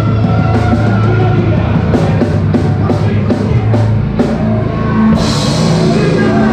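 Live rock band playing: electric guitars, bass and a drum kit with regular sharp drum hits. A bright cymbal crash rings out about five seconds in.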